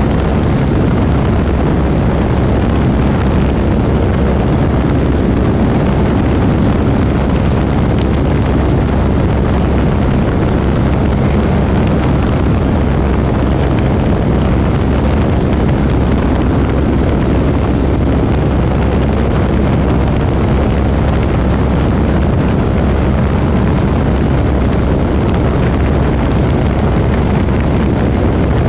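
Light propeller aeroplane's engine and propeller running, a loud, steady drone that holds even throughout.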